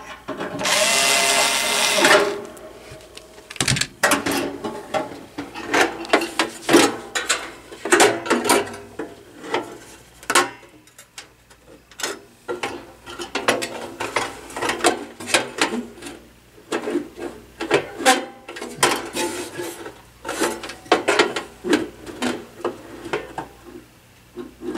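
A cordless screwdriver runs for about a second and a half, backing a screw out of a sheet-steel heater cabinet. Then comes a long run of irregular clicks, knocks and scraping as the heater's metal element frame and its coiled wire heating elements are handled and lifted out.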